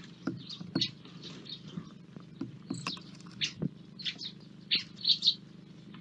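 Small feeder birds (great tits, blue tits, house sparrows) chirping and calling in short, irregular notes, loudest about five seconds in, with a few sharp taps of birds landing and pecking on the wooden feeders. A steady low hum runs underneath.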